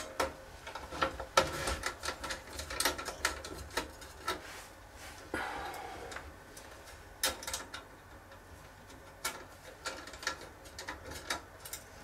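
Hands working the sheet-metal drive cage and backplate assembly of a QNAP TS-451+ NAS: irregular small metal clicks and taps, with a short scraping slide about five seconds in.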